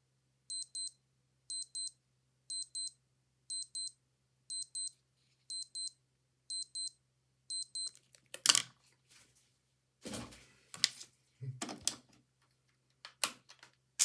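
Old digital watch alarm beeping: eight quick, high-pitched double beeps, one pair a second. The beeping then stops, and a string of sharp clicks and knocks follows.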